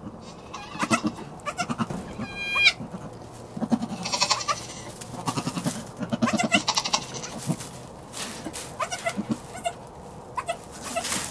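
Nigerian Dwarf goats calling: repeated short, low grunting calls, with one brief high-pitched bleat a little over two seconds in, amid rustling straw.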